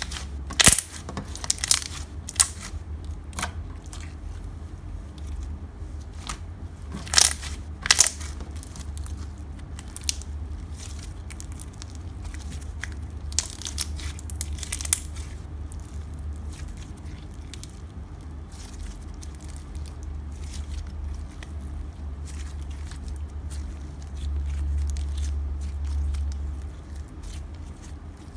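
Clear bubbly slime squeezed and pressed by hand, trapped air bubbles popping with sharp crackles and snaps, in clusters with a few louder pops. A steady low hum runs underneath.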